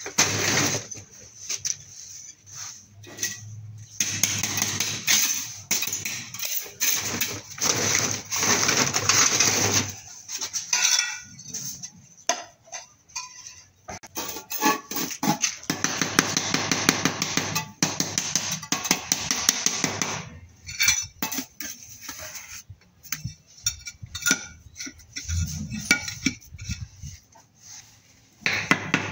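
Broken ceramic tile pieces clinking and a mason's trowel tapping and scraping as shards are bedded into mortar: many short irregular clicks and knocks, with stretches of denser scraping.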